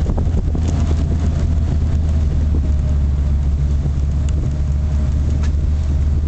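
Steady low rumble of a sports car's engine and tyres on a rough lane at a constant, gentle pace, heard from inside the moving car.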